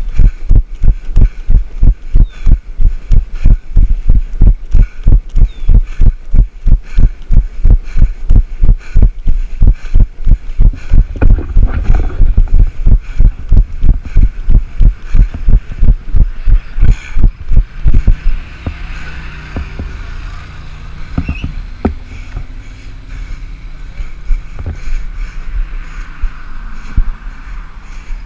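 Runner's footfalls thudding heavily through a body-worn action camera, about three steps a second. They stop about two-thirds of the way through, leaving a lower steady rumble and a few knocks.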